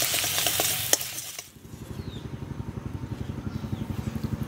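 Egg and onion sizzling in an iron wok, with a metal spatula scraping and clicking, for about a second and a half. Then it cuts off, and an engine runs steadily with a rapid, even chugging.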